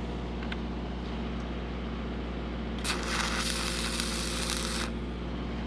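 Lincoln SAE 300 engine-driven welding machine running steadily, with about two seconds of stick-welding arc crackle from a 7014 rod starting about three seconds in.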